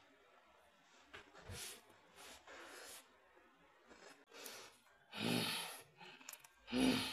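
A man breathing close to the microphone: several short, quiet breaths and sighs, the two near the end louder.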